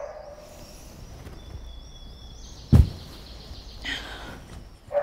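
Birds chirping over a quiet room hum, with one loud, sharp thump a little under three seconds in.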